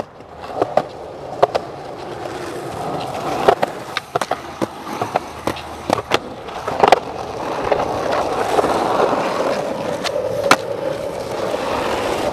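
Skateboard wheels rolling on asphalt, with a run of sharp clacks as the board is popped and lands, most of them in the first half; the rolling grows louder about two-thirds of the way through.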